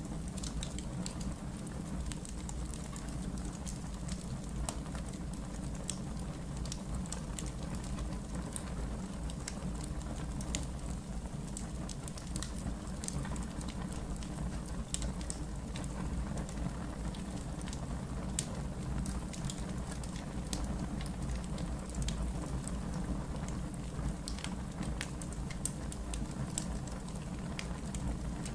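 Wood fire burning in a fireplace: a steady low rumble of flames with many small, sharp crackles and pops scattered irregularly throughout.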